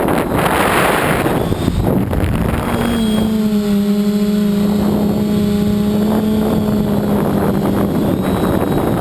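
Wind buffeting the microphone, with a multirotor's motors and propellers humming at a steady pitch from about three seconds in until near the end.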